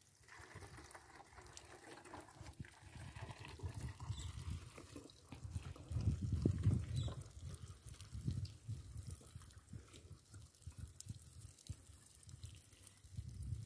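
Water pouring and trickling into a plastic bottle as it is filled, over an uneven low rumble that is loudest about halfway through.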